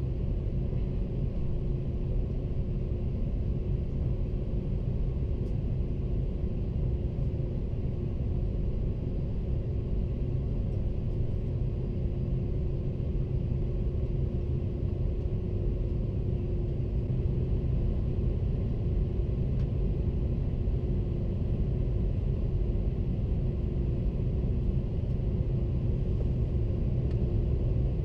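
Airbus A330-300 cabin noise heard from a window seat: a steady rumble of jet engines and airflow with a constant low hum, rising slightly in level partway through.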